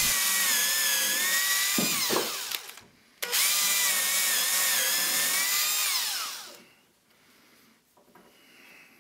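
Power drill with a countersink bit boring pilot holes through plywood, in two runs of about three seconds each. The motor's whine sags in pitch as each run ends.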